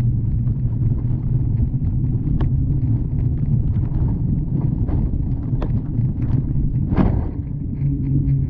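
Bicycle rolling over wet, textured concrete: a steady low rumble of tyres and frame vibration carried into a handlebar-mounted camera, with scattered clicks and rattles and a sharper knock about seven seconds in.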